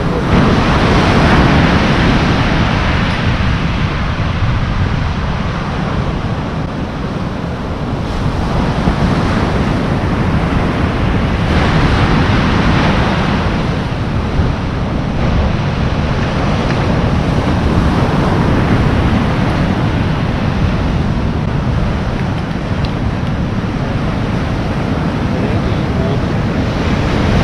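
Ocean surf breaking and washing on the shore, swelling and fading every several seconds, with wind rumbling on the microphone.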